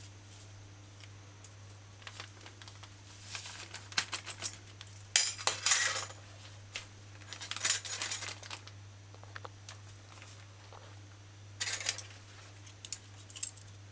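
Hands measuring sugar at a kitchen counter: a plastic sugar bag rustling and sugar pouring in a few short bursts, with light clinks of a measuring cup and utensils against a glass mixing bowl. A low steady hum runs underneath.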